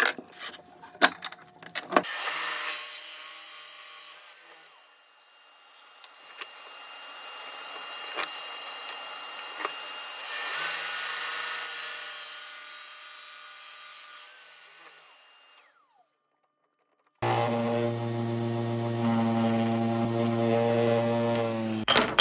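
Woodworking tool sounds in several cuts: a few sharp clicks and knocks, then stretches of a tool working wood, and near the end a power tool's motor running steadily with a strong hum.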